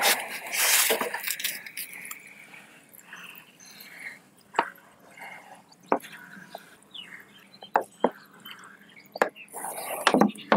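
Water sprinkling from a plastic bottle with a perforated cap onto soil and plastic milk-packet mulch in a grow bag, the drops striking the plastic. Loudest in the first second or so, then fainter with scattered sharp ticks.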